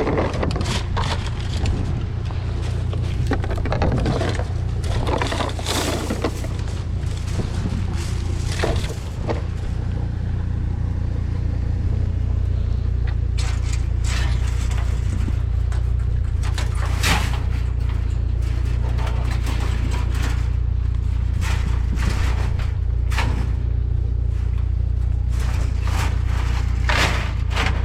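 Vehicle running with a steady low rumble, with scattered knocks and rattles on top of it.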